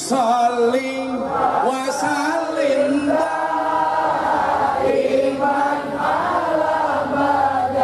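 Many voices singing a sholawat together, chant-like, in long held notes.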